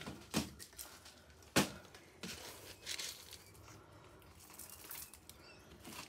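Handling noise: rustling of plastic with a few sharp knocks, the loudest about a second and a half in.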